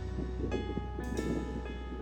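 Background music with sustained notes changing about every half second.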